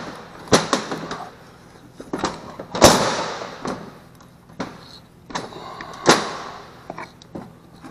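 Irregular sharp knocks and clunks, about nine of them with the loudest about three seconds in, as the aluminium oil pan (crankcase cover) of a Honda GXV160 engine is worked loose by hand after its bolts are out, the engine shifting on the bench.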